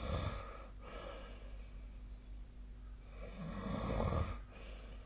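A sleeping person snoring: a short snore at the start and a longer, louder one about three and a half seconds in.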